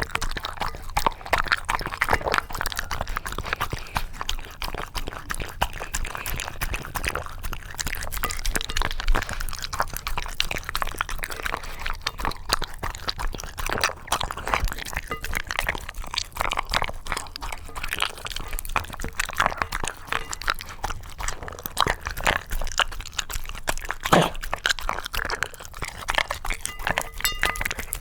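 A Shiba Inu eating from its dish: busy licking and crunchy chewing, with an occasional clink against the dish.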